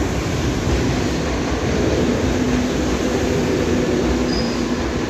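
Madrid Metro train running along the platform: a loud, steady rumble of wheels on rail, with a steady hum joining about two seconds in.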